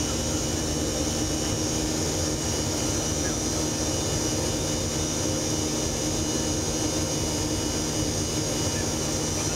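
Cabin noise of a Boeing 737-500 climbing out just after take-off: its CFM56-3 turbofans and the rush of air past the fuselage make a steady, even noise with a steady high whine over it.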